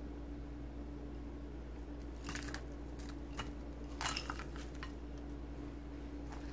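Chopped green onions tipped from a small glass bowl into a ceramic bowl of soy-based sauce: two short clusters of clinks and scrapes of glass against ceramic as the onions slide in, about two and four seconds in, with a few single clicks between, over a steady low hum.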